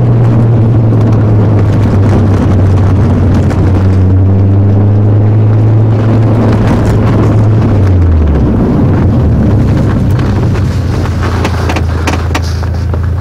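Alfa Romeo 156's 2.0 Twin Spark four-cylinder engine droning steadily under way, then falling in pitch about eight seconds in as the revs drop. Scattered clicks and knocks are heard near the end.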